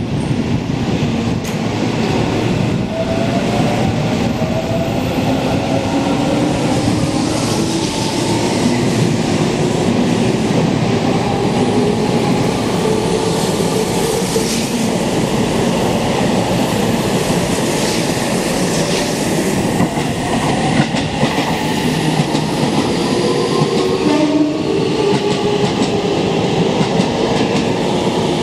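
Seibu 30000 series electric train pulling out of the station: its traction motors whine in several tones that climb steadily in pitch as it gathers speed, over the steady rumble and clatter of wheels on rail.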